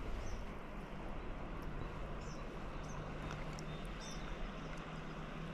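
Steady rush of shallow, flowing river water, with a few short high chirps scattered through it.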